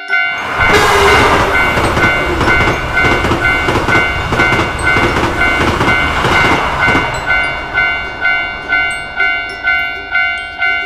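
Japanese level-crossing warning bell dinging at about two strikes a second while a train rattles over the crossing, clickety-clack, from just after the start until about seven seconds in; then the bell rings on alone.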